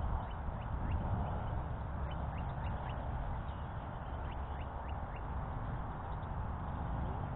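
Birds calling: a scattered run of short, falling chirps over a steady low rumble.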